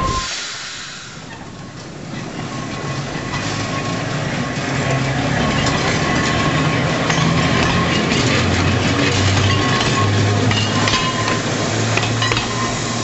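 Manx Electric Railway electric tramcar and its open crossbench trailer passing close by: steel wheels clicking over the rail joints over a low, steady motor hum. The sound dips about a second in, then builds as the cars draw level.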